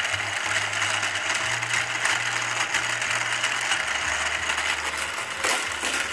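Battery-powered booster of a toy car track running, its small motor and spinning wheels whirring steadily with a low hum that drops a little in pitch about four seconds in. A sharp click near the end.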